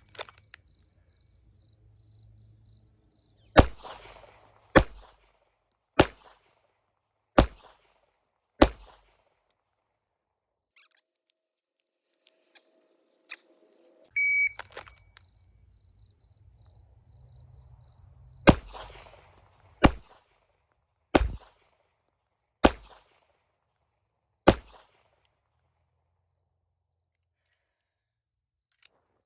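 Two strings of five deliberate 9mm pistol shots from a Wilson Combat eXperior, about one shot every one and a half seconds. The first string starts about three and a half seconds in. About 14 seconds in, a single short high electronic beep, as from a shot timer, starts the second string of five shots.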